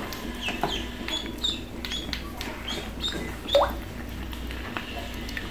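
Ducklings peeping in short, high calls, two or three a second, with one louder call that rises in pitch a little past halfway.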